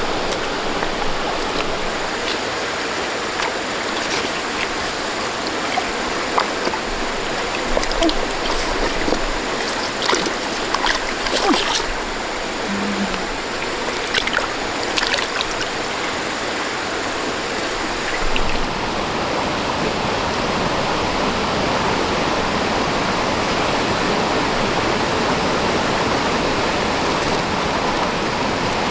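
Steady rushing of running water, with scattered sharp clicks and small splashes.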